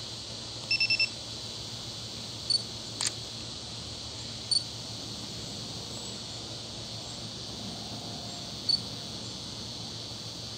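A steady high-pitched insect drone, with a quick four-pulse beeping trill just under a second in and a few single short high chirps a couple of seconds apart.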